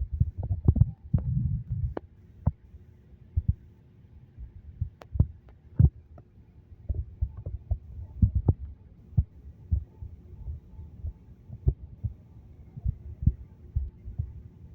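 Wind buffeting the microphone in irregular low thumps and knocks, over a faint steady hum.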